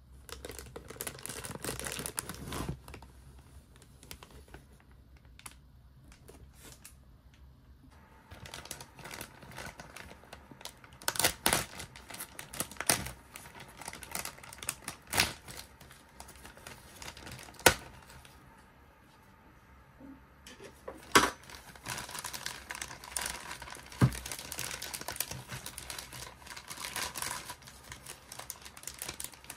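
Clear plastic bag crinkling and rustling as hands handle it and cut it open with a utility knife, with irregular sharp clicks and taps and a few quieter pauses.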